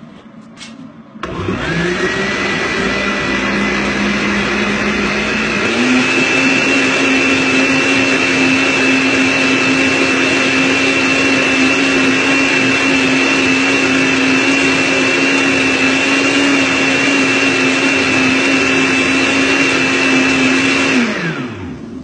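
Countertop blender starting about a second in and spinning up, stepping to a higher speed around six seconds in, running steadily while it blends a thin liquid mix of eggs, milk and sugar, then winding down near the end.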